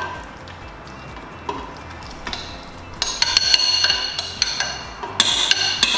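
A metal spoon scraping and knocking against a glass mixing bowl as mashed banana is scraped out. From about halfway through, the knocks set the glass ringing.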